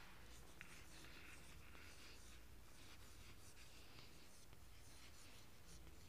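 Chalk writing on a blackboard: faint, short scratches and taps of the chalk, one stroke after another.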